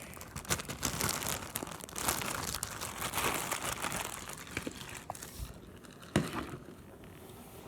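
Plastic zip-top bag crinkling as it is handled, with dense irregular crackles that thin out after about six seconds.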